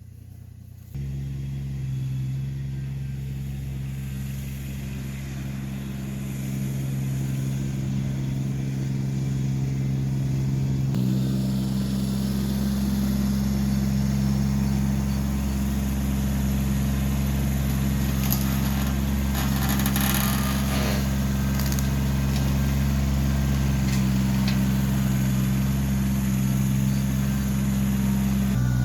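A machine engine running steadily at a constant speed. It comes in abruptly about a second in and gets louder about eleven seconds in, with a few brief scrapes or cracks around the middle.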